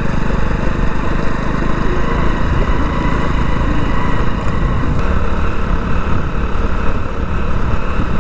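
Motorcycle engine running steadily while riding along a rough dirt road, with wind rushing over the microphone.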